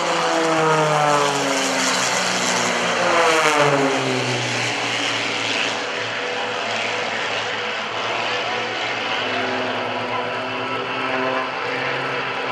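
Piston-engined aerobatic propeller planes flying past. The engine-and-propeller drone drops in pitch twice in the first few seconds as planes pass, then settles into a steadier note.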